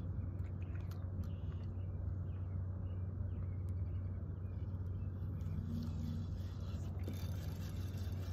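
Steady low electric hum of a small motor running on the boat, unchanging throughout, with faint high chirps and light ticks over it.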